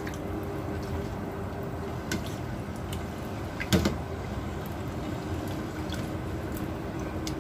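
Pot of water heating on the stove toward the boil: a steady low rush with small scattered ticks, and one sharp knock a little under four seconds in.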